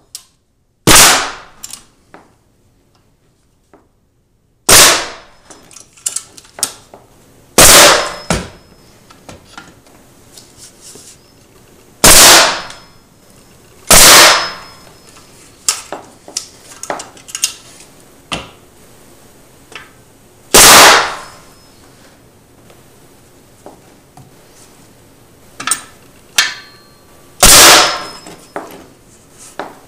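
Nail gun firing single shots to fasten down a hardwood bullnose: about seven sharp reports at irregular gaps of a few seconds, with lighter clicks and knocks between.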